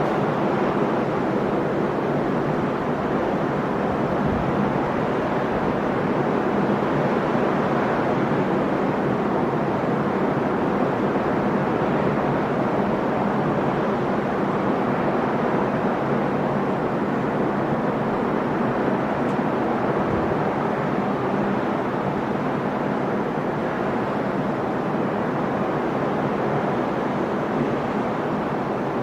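Sea surf washing onto the shore in a steady, continuous rush of breaking waves.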